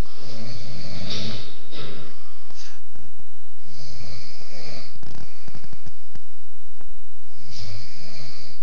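A sleeping person snoring: a low, rattling snore every few seconds, with breathy hissing between them.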